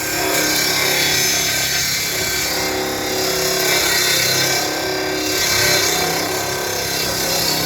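A powered workshop machine running steadily, with a dense set of steady hum tones and a hiss over them. It winds down just after this stretch.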